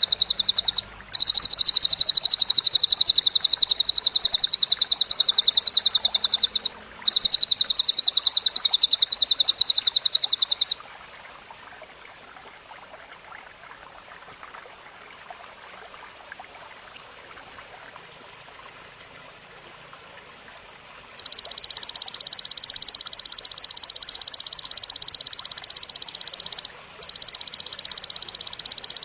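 Very high, rapid pulsing trills of masteran training sounds from a cililin bird and a belalang (grasshopper): one runs with short breaks about a second and seven seconds in and stops near eleven seconds, then after a stretch of faint hiss a second trill starts about twenty-one seconds in, broken once briefly near twenty-seven seconds.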